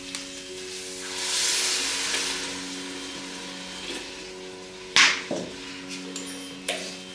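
Milk poured from a small brass pot into a large brass cooking pot, a splashing pour for a couple of seconds, then a sharp metallic clunk about five seconds in as the brass pot is set down on the mud stove, and a lighter knock near the end.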